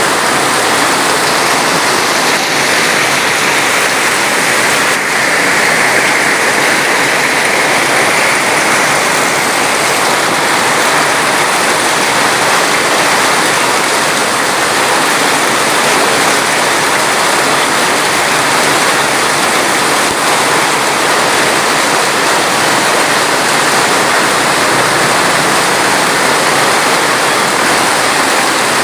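Steady, unbroken rush of flowing water, even in level throughout.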